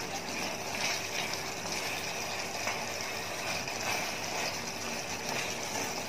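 Chicken in oyster sauce sizzling in a wok as a wooden spatula stirs it: a steady hiss of frying with the soft sounds of stirring.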